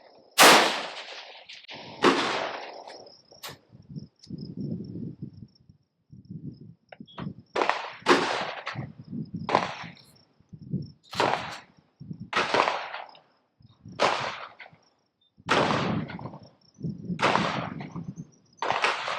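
Rifle shots: two loud sharp reports in the first two seconds, followed by a run of softer noisy bursts about every second and a half. A steady high insect trill runs underneath.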